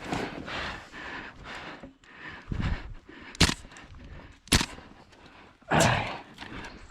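Tokyo Marui MWS gas-blowback airsoft rifle firing single shots: two sharp cracks about a second apart in the middle, among rustling and movement noise.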